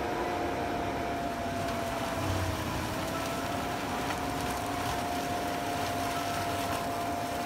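A heavy machine running steadily: a constant high whine over a broad rushing noise.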